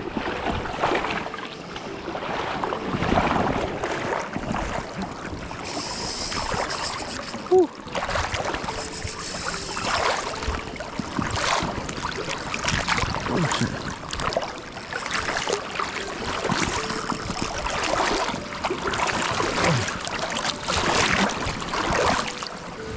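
Wind and water noise with irregular knocks and rustling, and a brief sharp sound about seven seconds in.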